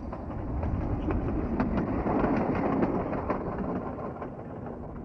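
Leonard's subway car rolling along its track, wheels clicking over the rail joints. The sound grows louder toward the middle and fades near the end.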